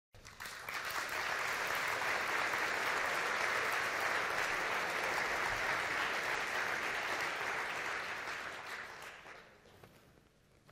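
Audience applauding, rising quickly at the start, holding steady, then dying away about nine seconds in.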